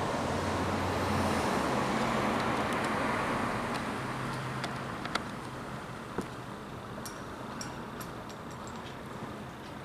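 A car driving past, its engine hum and tyre noise loud at first and then fading over several seconds as it moves away. A few light clicks follow.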